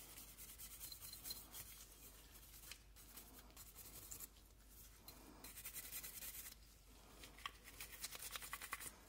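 Faint, scratchy scrubbing of a cleaning brush over the outside of a pistol slide near the muzzle, loosening carbon buildup. It comes in short bouts of quick strokes, busiest in the second half.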